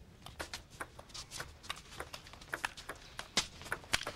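Table tennis rally: a quick, irregular run of sharp clicks as the celluloid ball strikes the rackets and the table, the two loudest hits about three and a half and four seconds in.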